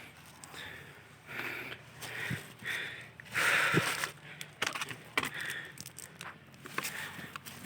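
A hiker breathing hard on a steep uphill climb, about one heavy breath a second, the loudest about halfway through, with footsteps and small crunching and clicking from the trail.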